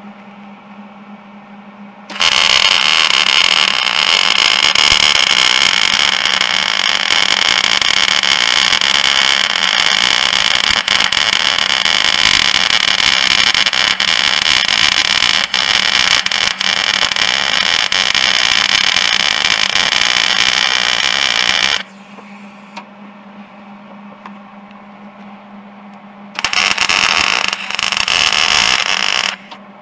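Wire-feed welder arc running as a steel wear rod is welded onto a snowmobile ski: one long weld of about twenty seconds that cuts off sharply, then a second, shorter weld starting about four seconds later. A steady low hum sounds underneath throughout.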